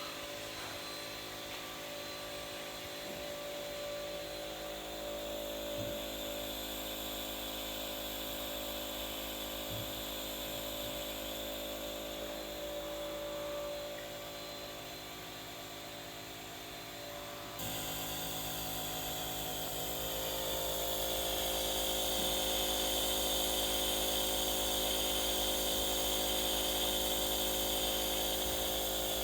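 Nebulizer compressor running steadily during a nebulization treatment: a motor hum with a whine, feeding mist to a dog's breathing mask. It gets louder a little past halfway.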